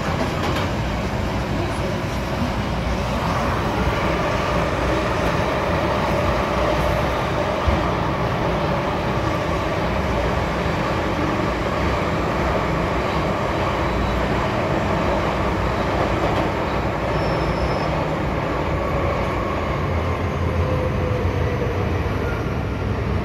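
MTR M-Train electric multiple unit running along the line: a steady rumble of wheels on rail with a faint, slowly wavering whine.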